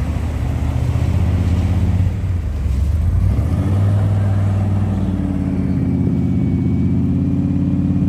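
1968 Chevrolet Chevelle's engine running as the car pulls away, its note climbing about halfway through as it accelerates, then holding steady.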